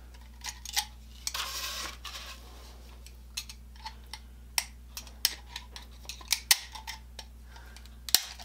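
A small blade trimming wood fuzz off the slats of an oak floor-vent grille: scattered light clicks and taps of the tool against the slats, with a short scrape about a second and a half in.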